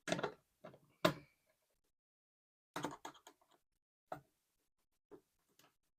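Irregular knocks and clicks of a hand tool working a bolt and lock nut tight on the kayak's plastic rail, with the loudest knock about a second in and a quick cluster of clicks near the middle.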